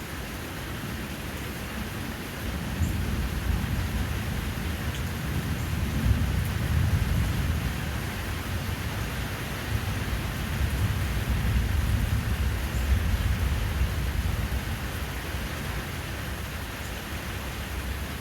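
Steady rain falling, with a long low rumble of thunder that builds about three seconds in, rolls on through the middle with two swells, and fades away near the end.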